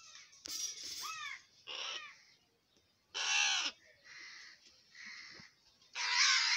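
A crow cawing again and again while held in the hand: about six loud caws with short gaps between them.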